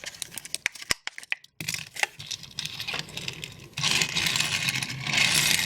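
A Hot Wheels blister pack being torn open: scattered clicks and cracks of stiff plastic, then steady crinkling and tearing of the plastic blister and card from about four seconds in.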